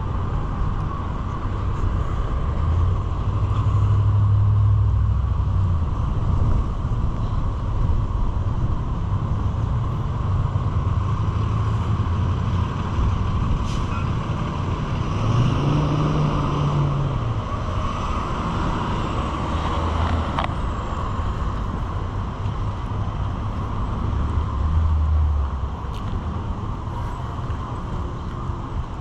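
Road traffic: motor vehicles driving past with a steady engine and tyre rumble that swells three times, near the start, midway and near the end.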